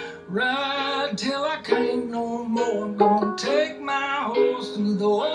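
Background music: a song with a voice singing over a strummed string instrument.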